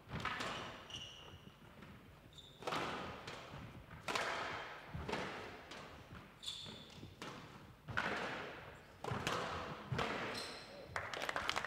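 Squash rally: the ball is struck by rackets and slams off the court walls about every second or so, each hit echoing in the hall, with short high squeaks from the players' shoes on the wooden floor in between.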